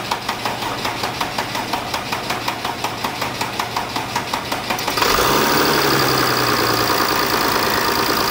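Mercedes OM642 3.0 V6 CDI diesel being cranked on the starter for about five seconds, with even rhythmic pulses, then catching and running: the revs flare briefly and settle to idle. This is the first start after an oil cooler seal job, with the oil system primed beforehand.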